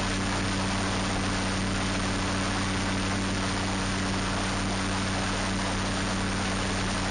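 Starflight ultralight trike's engine and propeller running steadily in cruising flight: a constant low drone under a steady rush of wind across the microphone.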